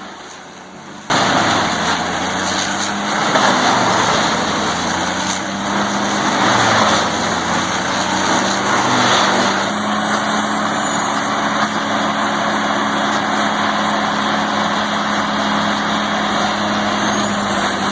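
Large hammer-mill wood grinder running and grinding material: a steady diesel engine drone under dense crunching and grinding noise, starting about a second in.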